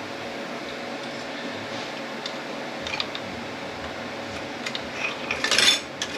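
Metal parts of a 10R80 automatic transmission being handled, with a few light clinks and then a louder metallic clatter near the end.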